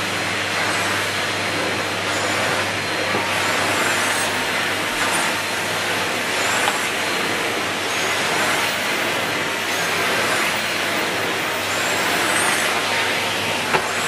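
Numatic Henry 160 cylinder vacuum cleaner running steadily while its floor tool is pushed back and forth over carpet. A brief click comes near the end.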